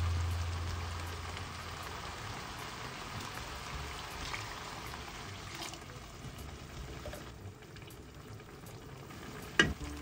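Tomato, vegetable and minced-chicken mixture sizzling in a pot as it is stirred with a spatula. A low hum fades out over the first two seconds, and a sharp knock comes near the end.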